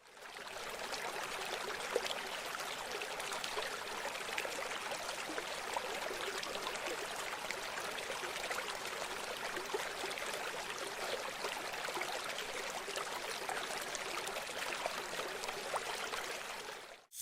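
River water flowing and babbling: a steady rush with many small splashes, fading in at the start and out near the end.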